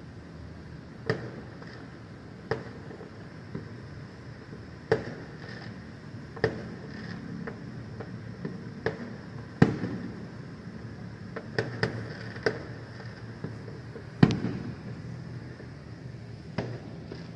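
Distant New Year fireworks going off: about a dozen sharp bangs at irregular intervals, the loudest near the middle and about three quarters of the way through, some trailing a brief rolling echo.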